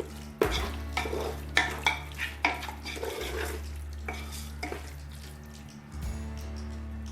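Mutton in a pot of fried onion and masala paste being stirred, with a run of scraping strokes against the pot and sizzling, from about half a second in until about five seconds. A steady low hum sits underneath throughout.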